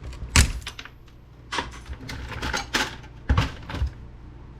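Clatter of small laptop parts and tools being handled and set down: a series of sharp clicks and knocks, about half a dozen, the loudest about half a second in.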